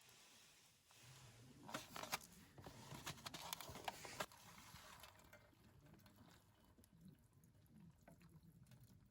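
Near silence with a few faint clicks and soft rustling in the first four seconds, then quieter still.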